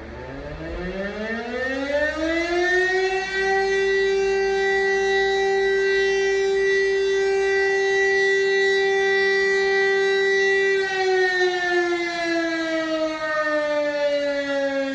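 Motor-driven rooftop fire siren, which the uploader takes for an East German DS977, sounding for its monthly test alarm. It winds up in pitch over about three seconds, holds a steady loud tone, and begins winding down about eleven seconds in.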